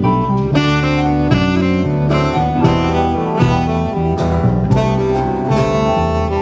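Live band playing an instrumental passage without vocals: sustained chords over a bass line, with sharp drum hits every second or so.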